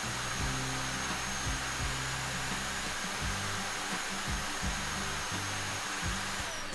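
Cordless stick vacuum with a 950 W brushless motor running at steady suction: a rushing airflow with a thin high motor whine. It cuts off near the end.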